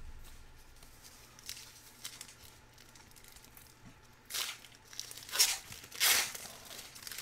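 Foil wrapper of a Panini Legacy football card pack crinkling in the hands, then torn open in three short rips about four to six seconds in, the last rip the loudest.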